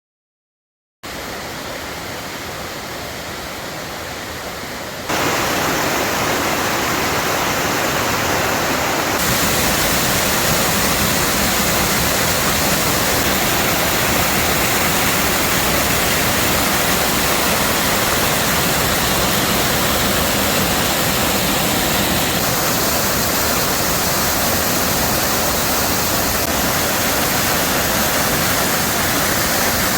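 Waterfall rushing steadily, an even hiss of falling water. It starts about a second in and gets much louder about five seconds in.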